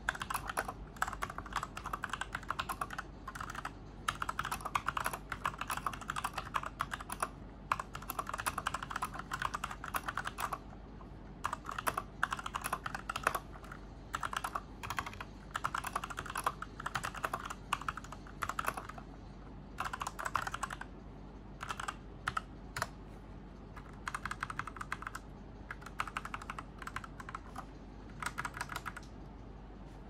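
Typing on an Ajazz K870T mechanical keyboard: rapid key clicks in runs of a second or two with short pauses between, stopping shortly before the end.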